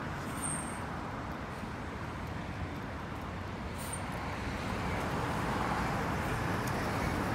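Street traffic noise: a steady rumble of passing road vehicles, growing a little louder in the second half.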